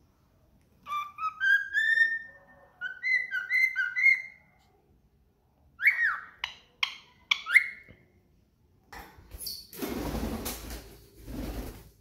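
Cockatiel whistling two short phrases of clear rising notes, then a few sharp chirps. A couple of seconds of rustling noise follow near the end.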